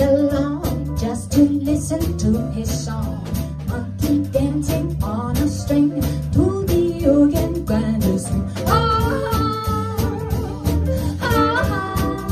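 Swing jazz song: a band playing to a steady beat, with a singer. Long held notes come in about two-thirds of the way through and again near the end.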